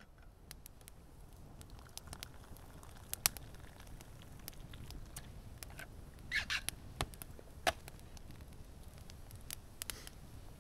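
Wood fire crackling in a metal fire pit: scattered sharp pops and snaps at irregular intervals, with a denser burst of crackle about six seconds in, over a low steady rumble.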